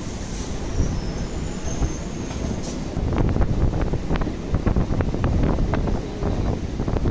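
Suburban electric local train running at speed: a steady rumble of wheels and coach, with a faint high-pitched squeal in the first seconds. From about three seconds in comes a rapid, irregular clatter of wheels over rail joints and points, with some wind on the microphone.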